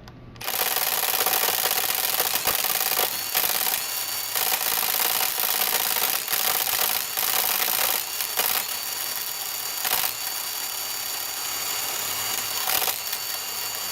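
Cordless impact wrench on its maximum setting (level 3, 220 foot-pounds), hammering continuously against a Pittsburgh Pro 3/8-inch drive ratchet that is being strained to its breaking point. It starts about half a second in and runs without letting up.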